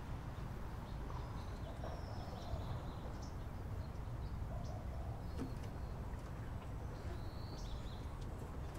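Outdoor rooftop ambience: a steady low rumble with a few faint, short bird chirps, about two seconds in and again near the end.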